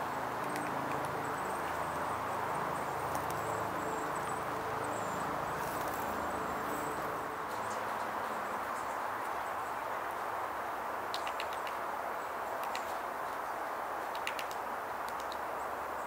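Red-breasted sapsucker pecking at tree bark: short irregular runs of light taps, clearest in the second half, over a steady rushing background noise.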